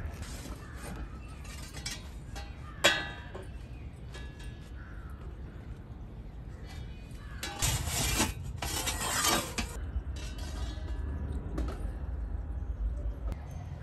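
A single sharp clink with a short ring about three seconds in, then about two seconds of rustling past the middle, as a tray of baked bagels on a cloth is handled, over steady outdoor background noise.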